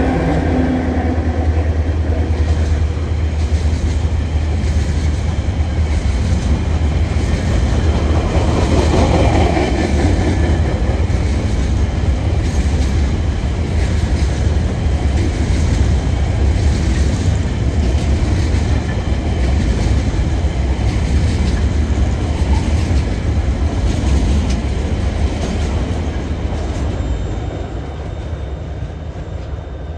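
Empty coal hopper wagons of a long freight train rolling past close by: a steady deep rumble with repeated clacks of wheels over rail joints. The diesel locomotives' engine sound dies away in the first second, and the rumble fades near the end as the train draws away.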